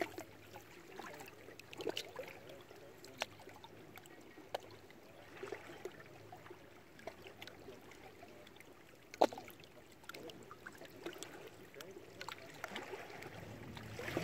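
Small wind-driven waves lapping and splashing against shoreline rocks: irregular little slaps and gurgles, with one sharper slap about nine seconds in.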